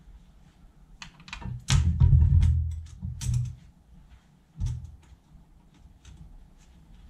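Scattered metal clicks and knocks from a reaming tool's pilot bush being fitted back into a Mini rear radius arm held in a vice, with a heavier thud about two seconds in.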